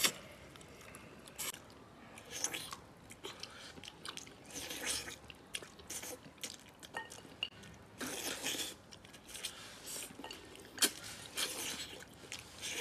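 Chewing and biting on braised chicken heads, with irregular short crunches and clicks.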